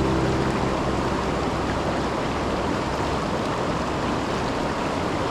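Steady rush of river water pouring over a low waterfall, with the last of a music track dying away in the first second.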